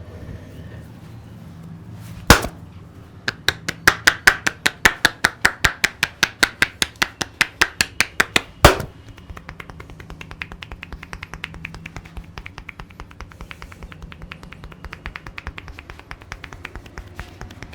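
Percussive massage strikes. A single sharp hit about two seconds in, then a run of loud strikes at about five a second, a heavy hit at about nine seconds, and then a quieter, faster run of strikes.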